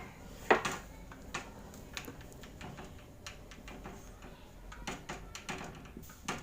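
Scattered light knocks and clicks of things being handled, with one sharp knock about half a second in.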